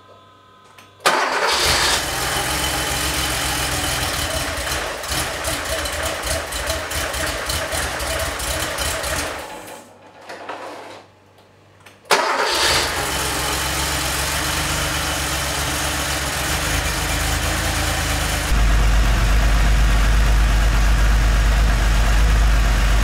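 Air-cooled flat-six engine of a 3.2L Porsche 911 catching on its first start after reassembly and running for several seconds, then dying away. It restarts suddenly and runs steadily, turning abruptly deeper and louder near the end.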